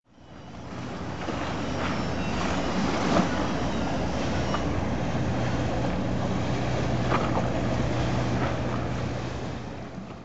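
Lagoon water sloshing and splashing against stone steps, with a few sharper slaps and a steady low hum underneath.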